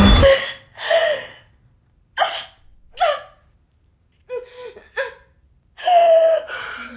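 A woman gasping and moaning in pain: six or seven short, sharp breaths with pauses between, several of them voiced. A low musical drone cuts off just after the start.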